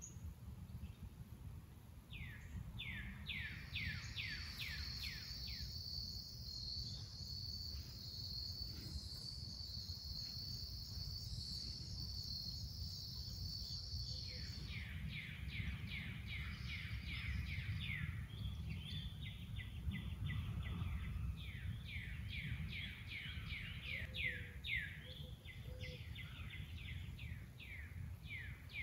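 Outdoor ambience: runs of rapid, high, repeated chirps, with a steady high buzz from about four seconds in that stops about halfway through, over a constant low rumble.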